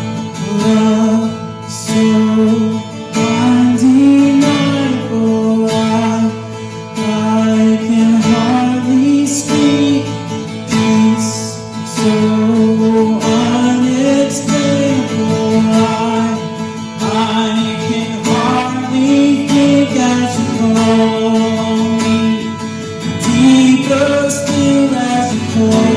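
Worship music: strummed acoustic guitar with a singing voice carrying a melody over it.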